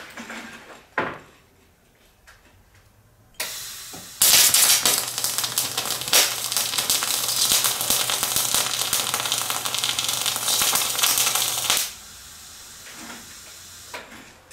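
MIG welding arc turned up toward spray transfer, at about 32 volts and 375 on the wire feed with a long arc length on 75/25 gas. It strikes about four seconds in and runs for about eight seconds as a steady, quiet hiss with scattered crackles, the hiss by which the welder tells spray transfer from short circuiting. The crackles are spatter: the wire feed to voltage ratio is not quite right.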